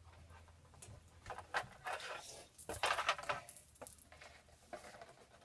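Cardboard and newspaper being handled and pressed into place: a run of rustles, scrapes and light knocks, loudest about three seconds in.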